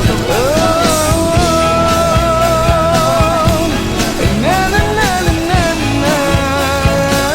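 A band playing live: a singer holds long, wavering notes over drums, bass and guitar.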